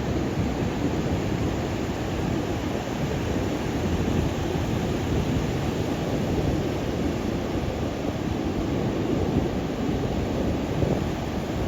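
Ocean surf breaking in a continuous wash of noise, with wind rumbling on the microphone.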